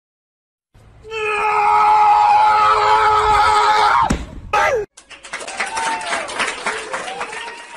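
A loud, high, sustained scream held for about three seconds, then a short cry falling in pitch, followed by a noisier clamour of voice.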